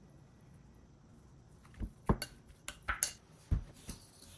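Kitchen handling noise: after a quiet start, a string of about seven short, light knocks and clinks as things are picked up and set down on the counter.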